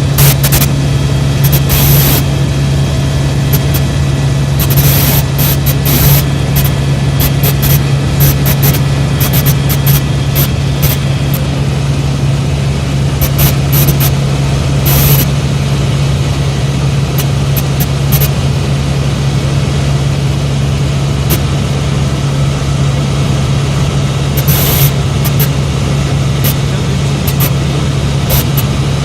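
Helicopter in flight: a loud, steady drone of turbine and rotor with a strong low hum, broken by a few short crackles.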